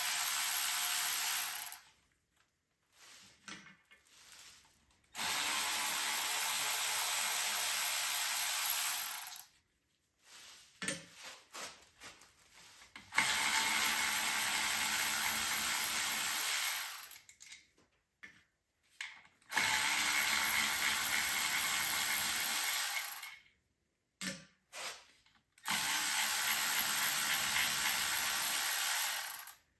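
Handheld power tool running in five bursts of about four seconds each, with short clicks and knocks between.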